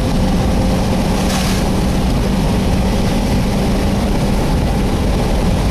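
Engine and road noise heard from inside a moving chase vehicle, with wind rushing past. A steady low engine drone runs under it and drops away about four and a half seconds in.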